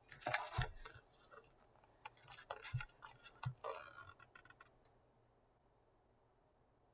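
Faint rustling of paper pages and a few soft thumps as an open picture book is lifted and handled, mostly in the first four seconds.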